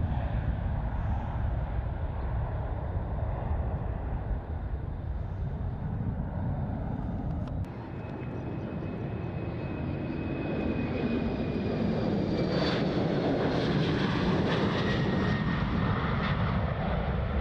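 Jet airliner engines at takeoff thrust: a steady low rumble that drops off abruptly about eight seconds in. It then builds again as a departing jet climbs past, with high whining tones that slide down in pitch, loudest near the end.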